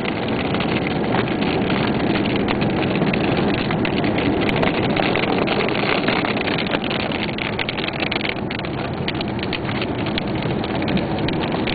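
A car driving on a rain-soaked road in a thunderstorm, heard from inside the cabin: a steady rush of tyres on wet pavement and wind, with scattered ticks of rain striking the car.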